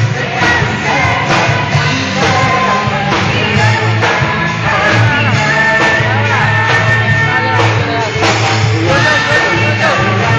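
Rock band playing a song with a lead singer, over drums and bass.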